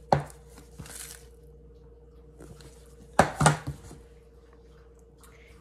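Kitchen containers and utensils being handled on a countertop: a sharp knock right at the start and a quick double knock a little past the middle, over a faint steady hum.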